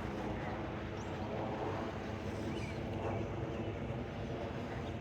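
A motor running at a steady hum, with a few faint bird chirps.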